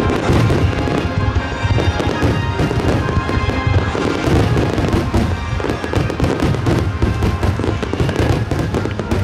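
A star mine fireworks barrage: dozens of shells bursting in rapid succession with dense crackling, over music playing throughout.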